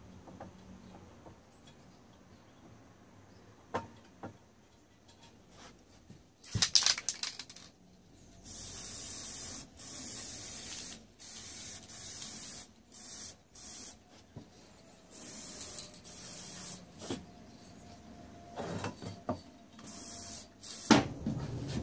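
A hissing spray in a series of short bursts, each about a second long, with a few sharp knocks before the first burst.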